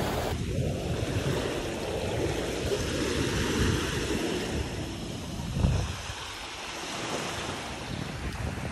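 Small sea waves washing onto a sandy, shell-strewn shore, with wind buffeting the phone's microphone in a low rumble.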